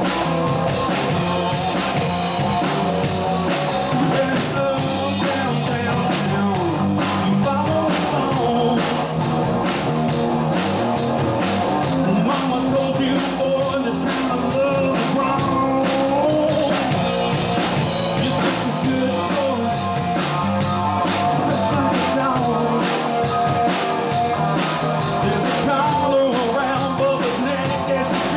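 Live rock band playing: drum kit, electric guitar and a singing voice, steady and loud.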